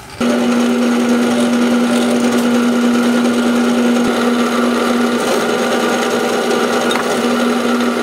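Drill press running with a steady hum, drilling into a solid steel block. The sound starts abruptly just after the start.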